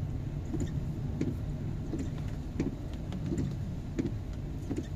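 Car cabin noise while driving uphill on a rain-wet road: a steady low engine and tyre rumble, with scattered light ticks.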